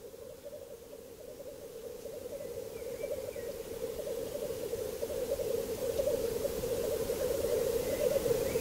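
Black grouse males at a lek, a continuous low bubbling, cooing chorus from several birds, growing steadily louder.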